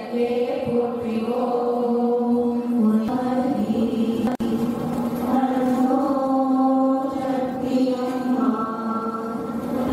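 A group of voices chanting a Hindu devotional prayer in unison, in long held notes that shift in pitch every few seconds. The sound drops out for an instant about four seconds in.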